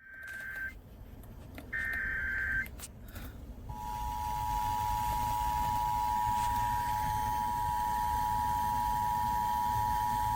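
NOAA Weather Radio emergency alert: two short bursts of warbling SAME header data tones, then the steady two-tone EAS attention signal, held for about seven seconds over faint radio hiss.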